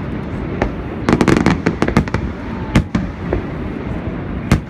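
Fireworks shells bursting: a rapid cluster of sharp bangs about a second in, then single bangs every second or so, with one of the loudest near the end, over steady background noise.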